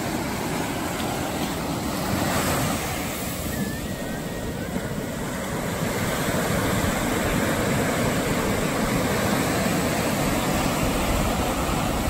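Ocean surf: waves breaking and washing up the sand in a steady rush, growing a little louder in the second half.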